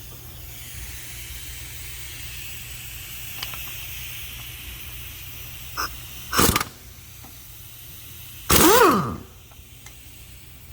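Impact gun running on a tight AC compressor bracket bolt: a short burst about six and a half seconds in, then a longer burst a couple of seconds later that falls in pitch as it winds down. Under it runs a steady low hum.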